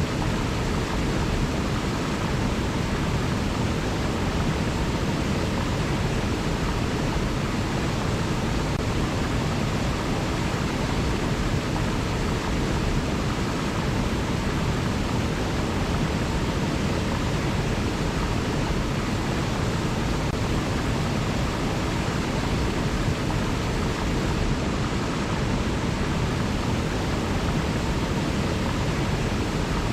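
River water flowing: a steady, even rush of water that does not change.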